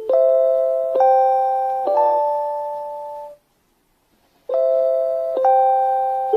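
JR Hokkaido station guidance chime for visually impaired passengers: a short electronic melody of bell-like notes, each struck and fading, about one a second. It breaks off for about a second midway, then starts again.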